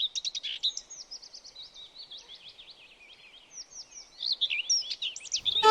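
Birdsong: a quick, unbroken run of varied chirps and whistles. Near the end, a fiddle and plucked strings start playing.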